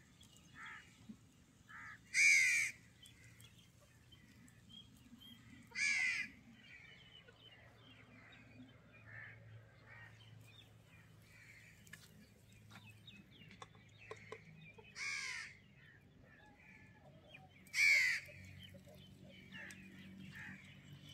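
A crow cawing four times, each a short call, about two, six, fifteen and eighteen seconds in, with fainter bird chirps between.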